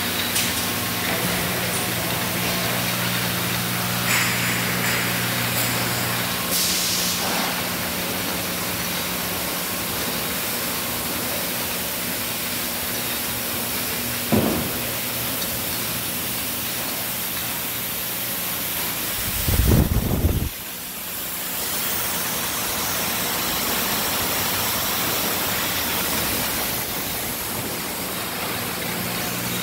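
Bottling-line machinery running: a steady hiss with low motor hum from the stainless-steel conveyors and filling equipment. There is a sharp knock about halfway through and a loud low rumble about two-thirds of the way in.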